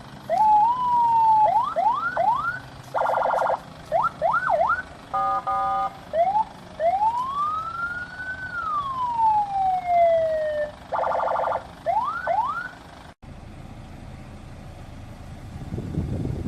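Senken CJB100BD electronic car siren run through its tones: quick rising yelps, a short buzzy horn blast, a brief steady tone, then one long wail that rises and falls slowly. Another blast and a few yelps follow before it cuts off about two-thirds of the way through.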